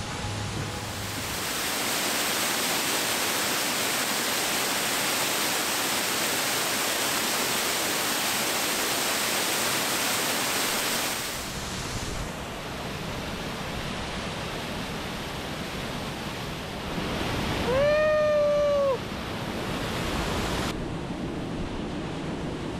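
Waterfall crashing down over rock, a steady rushing roar that changes in tone twice as the listening spot shifts. About eighteen seconds in, a single pitched call rises and falls over about a second.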